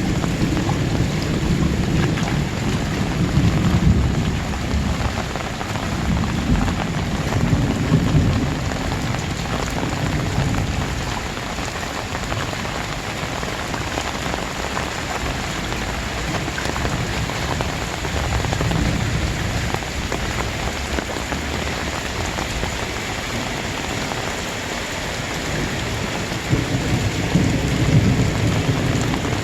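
Heavy rain pouring down steadily, with low rumbling swells that rise and fade several times.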